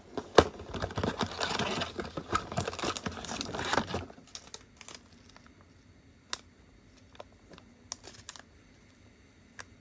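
Rustling and crinkling of a rapid antigen test kit's packaging (cardboard box, foil pouch and paper leaflet) being handled, dense and clicky for about four seconds, then a few light, scattered taps and clicks.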